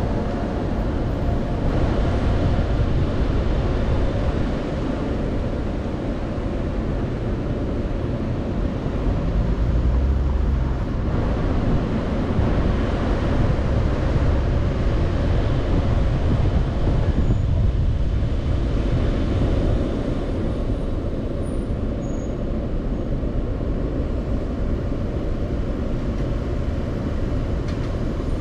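A car driving slowly on city streets, with a steady low rumble of engine and tyre noise and surrounding traffic.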